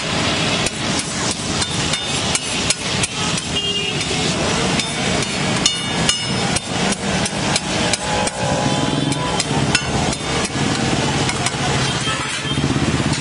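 Metal spatula clacking and scraping on a flat steel griddle, chopping and mixing vegetables in quick irregular strikes, over a steady low street rumble.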